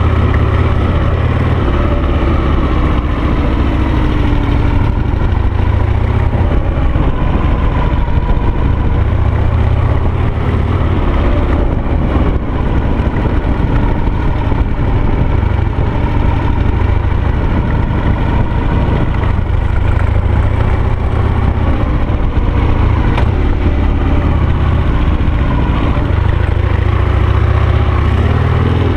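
Harley-Davidson Sportster air-cooled V-twin engine of a dual-sport motorcycle running under way. Its pitch rises and falls as the throttle is worked, with a dip a few seconds in and a rise near the end.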